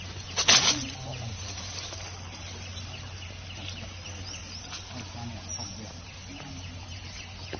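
A macaque gives one short, loud shriek about half a second in, with only faint background noise around it.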